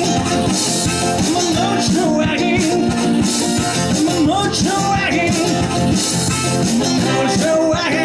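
Live blues from a guitar played flat on the lap, its notes sliding up and down, over a steady foot-drum beat.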